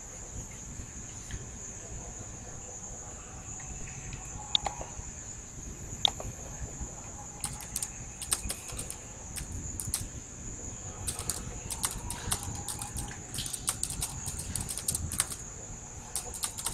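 Computer keyboard typing in quick bursts of keystrokes from about seven seconds in, after a few single clicks, over a steady high-pitched whine.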